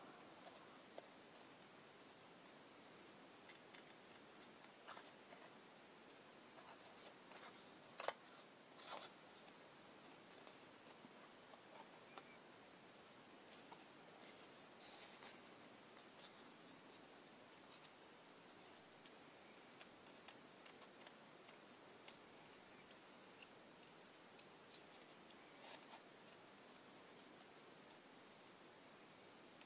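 Small scissors cutting around a shape in thin card: quiet, irregular snips, with louder bunches of cuts about seven to nine seconds in and again around fifteen seconds in.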